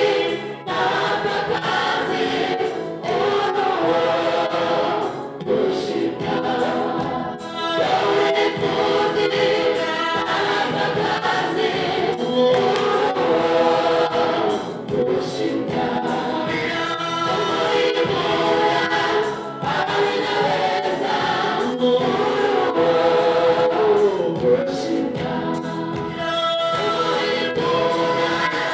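Gospel choir singing, its voices amplified through microphones.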